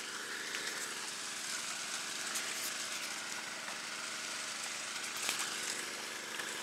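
Small gasoline engine of a gold suction dredge running steadily at a constant speed, with a hiss of water over it.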